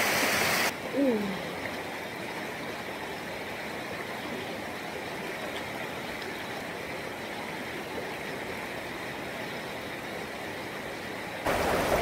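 Mountain river rushing steadily over rocks, dropping in level just under a second in. A short falling vocal cry sounds about a second in.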